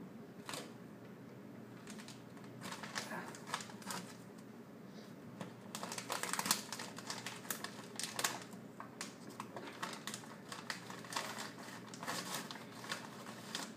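Crinkling and rustling of a stiff paper coffee bag as small hands grip, fold and open it: irregular crackles in uneven clusters.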